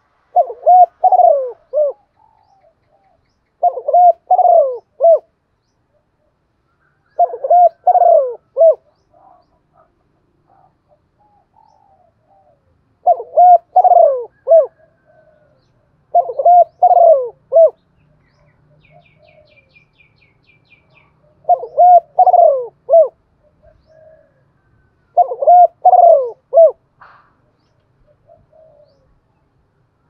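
Spotted dove cooing: seven phrases of four or five coo notes each, a few seconds apart.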